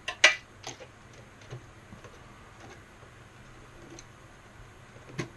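Gigabyte B450M DS3H motherboard and its mounting screws clicking and tapping as the board is lowered onto the screws in the desk: a cluster of sharp clicks in the first second, then a few fainter ticks spread out.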